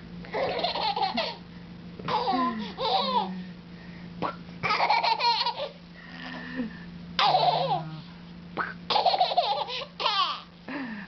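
A baby laughing in repeated bursts, every second or two, with a steady low hum underneath.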